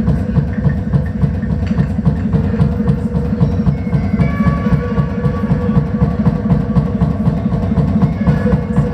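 Loud live experimental noise music: a dense, rapid low pulsing rhythm under a steady held tone.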